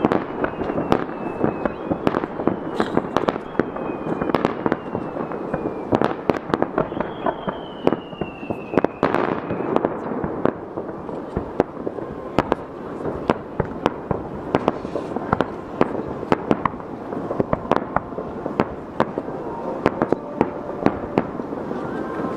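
Aerial firework shells bursting in quick succession: many sharp bangs over continuous crackling. A whistle gliding down in pitch comes near the start and another about eight seconds in.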